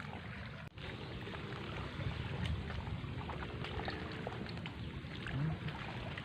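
Steady outdoor background noise, with a few faint clicks.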